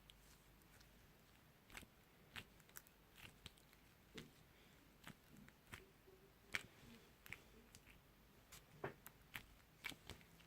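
Faint, irregular small clicks and pops of slime being squeezed and worked by hand, as trapped air bubbles pop.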